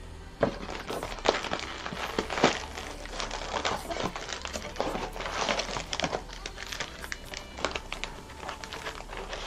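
A cardboard cello box of 2020 Panini Mosaic NFL cards being torn open at its perforated lid, then its cellophane-wrapped packs crinkling and rustling as they are pulled out by hand, with irregular crackles and clicks.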